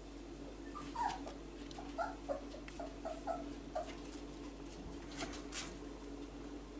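A four-week-old whippet puppy giving a string of about eight short, high cries over some three seconds, starting about a second in, the first one sliding down in pitch. A few faint clicks follow later on.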